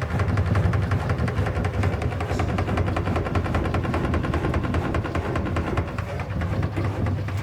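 Washing machine banging: rapid, even knocks, about ten a second, over a steady low hum.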